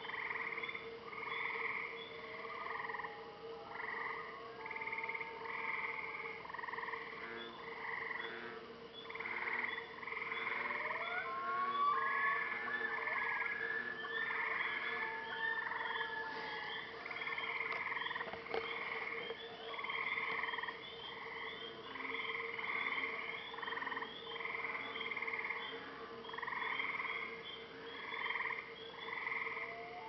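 A night chorus of many frogs calling at once, their croaks overlapping in a continuous pulsing rhythm. A few thin whistled glides rise and fall through the chorus, the longest held for a few seconds about twelve seconds in.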